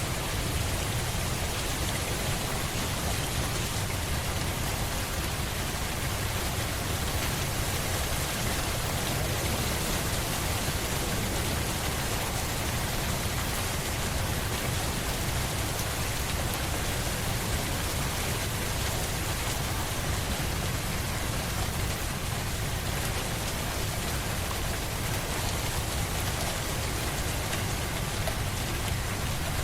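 Steady rain falling, an even hiss with a deep low rumble underneath and no breaks.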